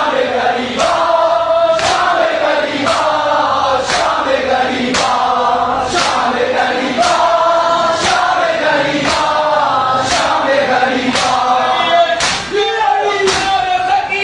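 A group of men chanting a mourning lament together in unison. A sharp slap falls in time about once a second, like the rhythmic chest-beating (matam) of Shia mourners.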